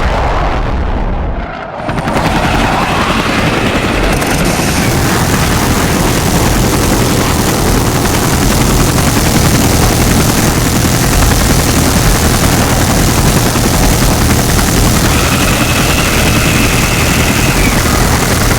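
Loud, dense combat sound effects: military helicopter and aircraft engine noise mixed with booms. The sound drops away briefly near the start, then builds back up.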